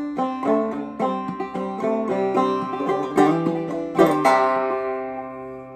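Banjo played clawhammer style, quick picked and brushed notes in a steady rhythm, ending about four seconds in on a final struck chord that rings and fades out.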